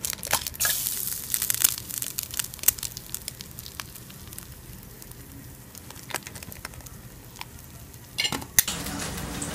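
An egg frying in bacon grease in a pan: steady sizzling with many small crackling pops, busiest just after the egg goes in, and a brief louder burst of crackle near the end.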